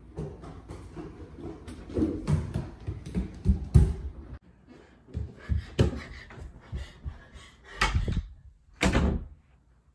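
A run of heavy, uneven thumps and knocks on a hard indoor surface. The sound cuts off abruptly about four and a half seconds in, then a few louder single thuds follow, the last near the end.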